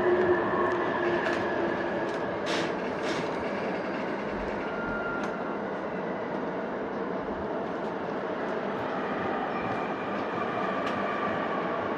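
Keihin-Tohoku Line E233-series electric commuter train running between stations: steady rolling noise with faint steady whining tones. A few sharp clicks of the wheels over rail joints come through, the clearest about two and a half and three seconds in.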